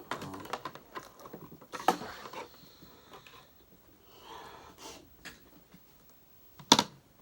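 Scattered clicks and rustling of a vacuum cleaner's power cord being wound up by hand, with one sharp knock near the end.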